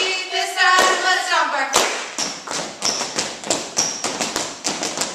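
A cheer chant shouted out for about the first two seconds, punctuated by sharp claps on the beat, then a quick, uneven run of taps and thuds with a couple of short high squeaks.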